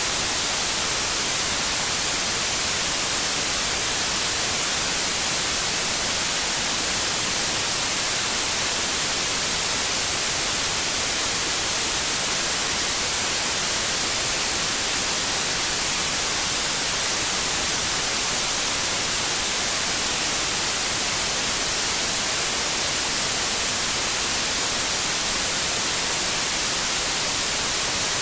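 Steady electronic white noise: an even, unbroken hiss, brightest in the high frequencies.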